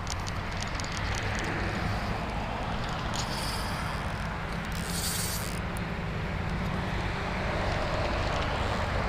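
Steady road-traffic noise mixed with wind on the microphone, with two short high hisses about three and five seconds in.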